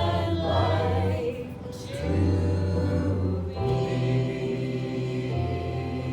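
A group of voices singing a hymn over held chords with a sustained low bass line.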